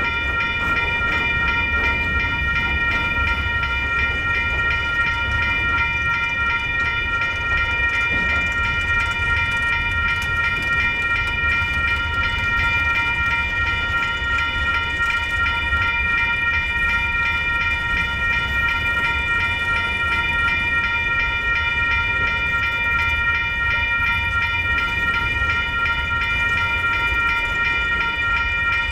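Railroad grade-crossing bell ringing steadily over the low, continuous rumble of freight cars rolling slowly past.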